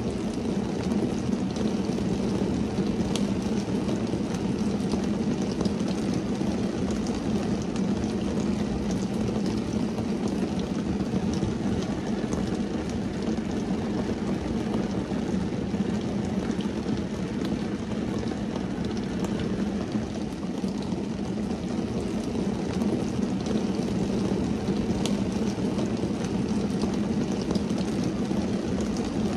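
Steady rain falling on a car's windshield and roof, heard from inside the car: a dense, even patter over a low rumble, with now and then the sharper tick of a single drop.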